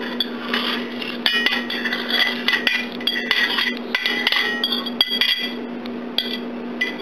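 A utensil scraping and knocking against a ceramic plate as mashed banana is scraped off into a stainless steel mixing bowl: a run of quick, irregular clinks and scrapes, some with a brief ring.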